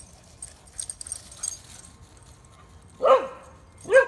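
A dog barks twice, about three seconds in and again a second later, each bark a short call falling in pitch.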